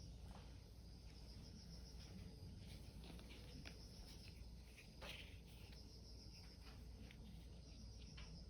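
Crickets chirping faintly in a high, pulsing trill that comes and goes, with a few soft clicks, the clearest about five seconds in.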